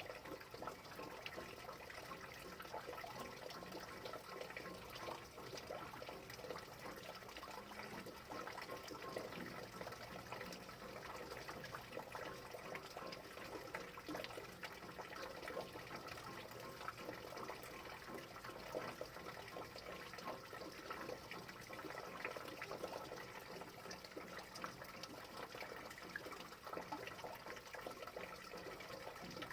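Steady rain: an even hiss of falling water dotted with many small drop impacts.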